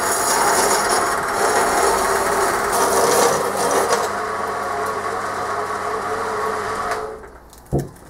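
Bandsaw blade cutting through a cast aluminium casting: a steady, loud rasping saw noise over the motor's hum. About seven seconds in the cutting noise stops as the sprue is cut off, and a single short knock follows.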